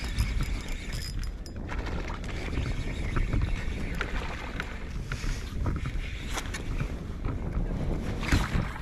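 Wind rumbling on the microphone aboard a kayak, with scattered small clicks and knocks from the rod, reel and tackle as a fish is played on a bent rod.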